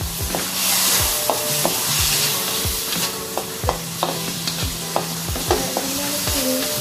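Diced meat sizzling in hot oil in a wok, stirred with a wooden spatula that scrapes and taps against the pan now and then. Background music with steady notes and a regular beat plays underneath.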